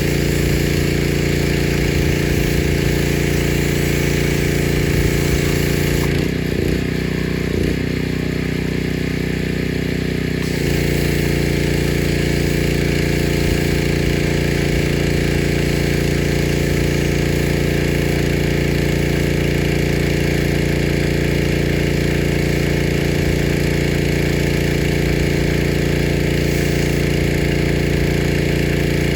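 Pressure washer running steadily, its motor and pump note under a loud spray hiss. About six seconds in the hiss stops for roughly four seconds and the motor note wavers, then spraying starts again.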